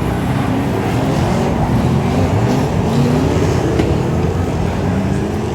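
Several speedway race car engines running together, their pitches rising and falling as they circle the track.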